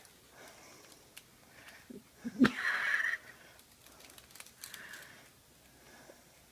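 One short, breathy rush of air, a sniff or huff, about two and a half seconds in, over faint room noise.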